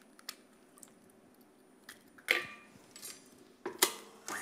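Stand mixer with a glass bowl and wire whisk being set up: small clicks, a loud clink with a short ring about halfway through, and two sharp clacks near the end as the mixer head is lowered. The motor starts running right at the end, to whip eggs until foamy.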